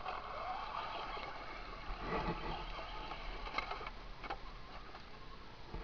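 Small electric motor and gears of a radio-controlled scale trail truck whining as it drives, the pitch rising and falling with the throttle, with a couple of sharp clicks from the truck on the gravel.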